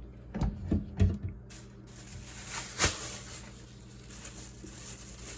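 Short knocks and clicks from plastic parts of a vacuum cleaner's dirt compartment being handled: a cluster of them in the first second and a half, then one sharp knock about three seconds in.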